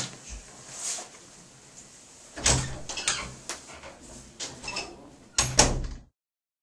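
An office door being opened and shut as someone walks out: a run of knocks and latch clicks, with the loudest, a double bang, near the end. The sound then cuts off abruptly.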